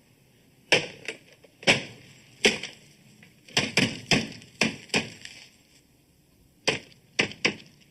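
A series of sharp, hard knocks, about a dozen in all and irregularly spaced, each with a short ringing tail. A brief pause about five seconds in is followed by three more knocks close together near the end.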